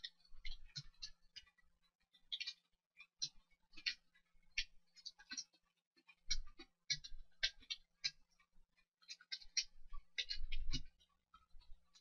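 Computer keyboard being typed on at about 80 words a minute: quick, uneven key clicks, several a second, in short runs with brief pauses.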